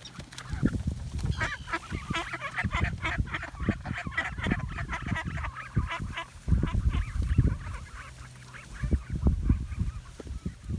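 A group of mallard ducks quacking in a rapid flurry of short calls, thickest in the first half and thinning out later, over low rumbling thumps.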